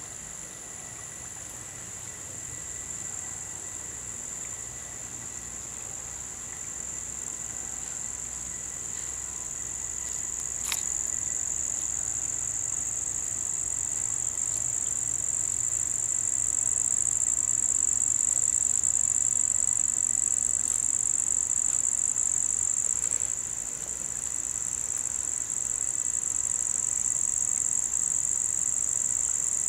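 Steady, high-pitched chorus of insects, growing gradually louder, with one faint click about ten seconds in.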